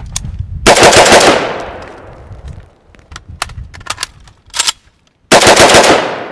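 Automatic rifle fire from an AK-74: a rapid full-auto burst about a second in, then a second burst near the end, each echoing away afterwards. A few single sharp cracks come in between.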